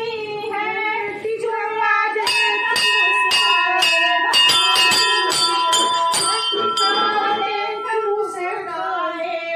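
Hanging temple bells rung by hand, struck rapidly about three times a second from about two seconds in until about seven seconds, each strike leaving a ringing tone, with singing throughout.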